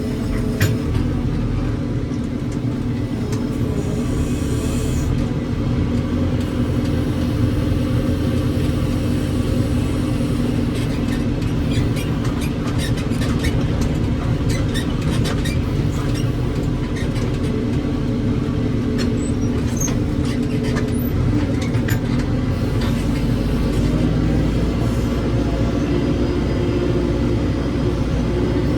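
Heavy diesel engine running steadily under load, with scattered sharp clanks and knocks over it.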